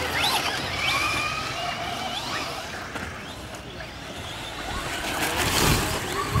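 Electric 1/10-scale RC off-road buggies racing on dirt, their motors whining up and down in pitch as they speed up and slow down. A rougher, noisier stretch comes near the end.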